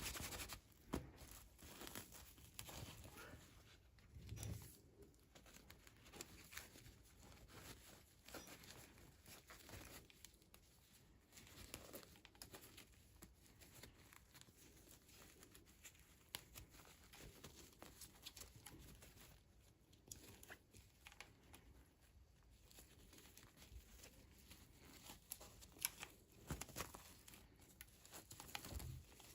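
Faint crinkling and tearing of toy packaging being opened by hand, with scattered small clicks and taps.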